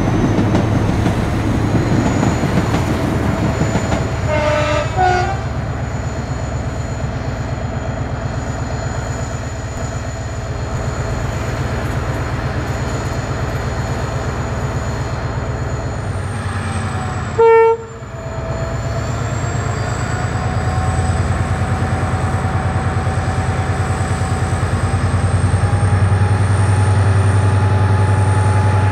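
Diesel train noise from a GM 071 class locomotive's two-stroke V12 engine running, with a whining tone over it and a passing railcar at the start. A short two-tone train horn toot sounds about four seconds in and a louder, brief single horn blast just past halfway. The engine grows louder in the later part as the locomotive works its train forward.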